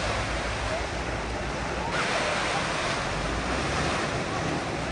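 Ocean surf washing onto the beach, with wind rumbling on the microphone. The sound changes abruptly about two seconds in.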